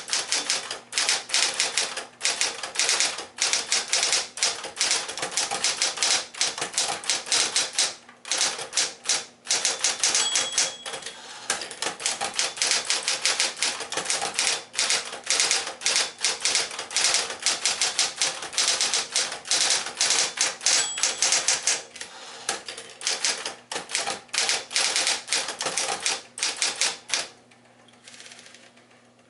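Smith Corona Electra 120 electric typewriter being typed on fast: a rapid clatter of key strikes with short pauses, over the steady hum of its motor. Two brief ringing tones come about ten seconds apart. The typing stops near the end, leaving the motor humming.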